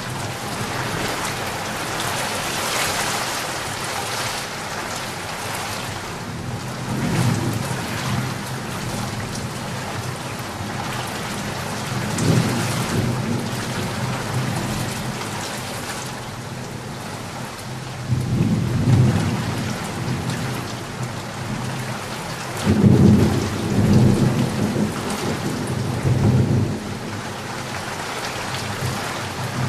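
Steady heavy rain hiss with low rumbles of thunder swelling up several times, the loudest cluster about three quarters of the way through.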